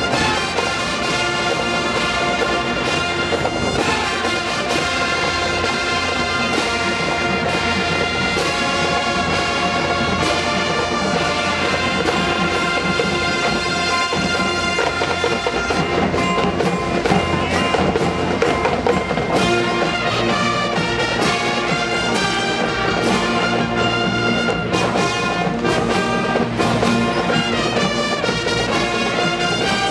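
Marching band playing live: a full brass section sounding held chords and melody over drumline percussion.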